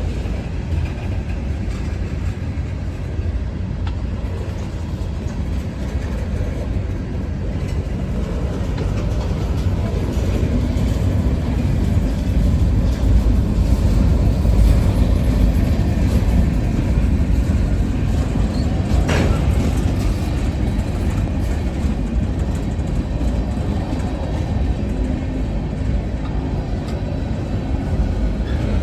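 Slow-moving freight train rolling past with a steady low rumble, swelling a little about halfway through. A brief sharp squeal comes about two-thirds of the way in.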